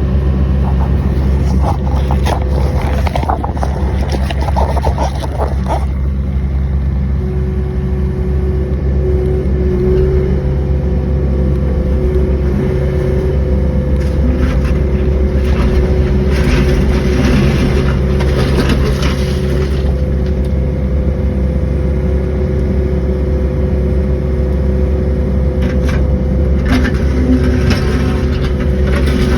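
Small excavator's engine running steadily, with stretches of scraping and rattling as the bucket works along the curb, a few seconds in, in the middle and near the end.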